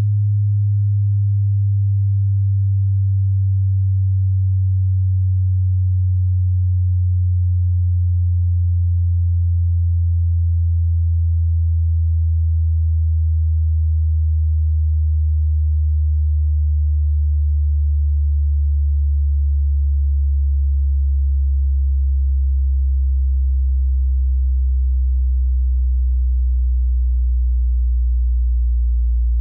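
Sine-wave hearing-test tone sweeping from high to low, here in the deep bass: one pure, steady hum sliding slowly and evenly lower in pitch.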